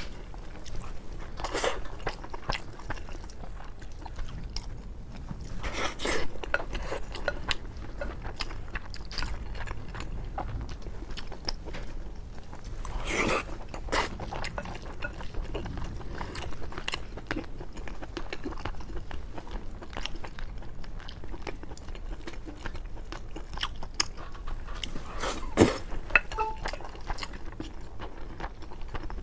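Close-up chewing and biting while eating braised pork over rice, with irregular wet mouth clicks and a few sharper clinks of utensils on the dish; the loudest click comes near the end.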